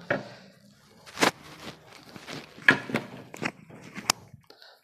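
Handling noise with the screwdriver's motor stopped: about five sharp clicks and knocks, spread roughly a second apart, as screws, bits and work are handled between screwing runs.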